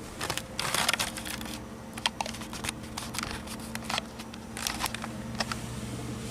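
Handling noises: a rustle about a second in and scattered sharp clicks, over a steady low hum.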